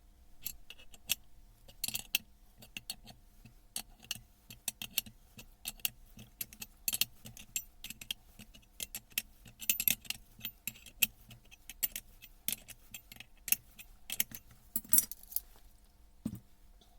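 Small metal parts clinking and clattering in irregular bursts as they are handled during disassembly of a Hilti TE 80 breaker hammer, with a duller knock near the end.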